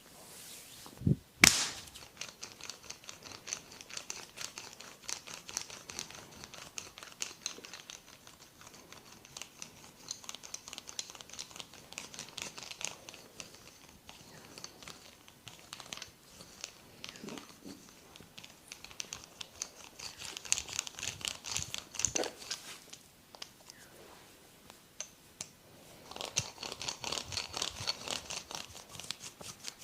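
Massaging hands rubbing and scratching over skin and hair close to the microphone, a dense fast crackling rustle that swells and fades in spells, with one sharp click about a second and a half in.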